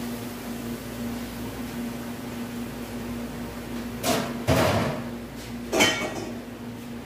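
A steady low hum, broken by two loud clattering knocks, one about four seconds in and one near six seconds.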